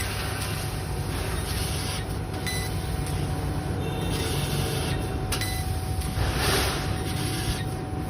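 1500 W laser cutting machine running while cutting sheet metal: a steady hiss over a constant hum. The hiss drops away briefly about three times and swells louder shortly before the end.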